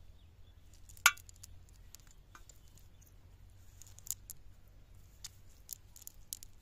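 A wet cast net being lifted and shaken out by hand, giving scattered small clicks and ticks, with one sharp clink about a second in.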